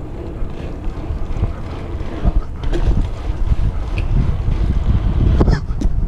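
Wind buffeting the microphone, with a few sharp clicks and knocks near the end.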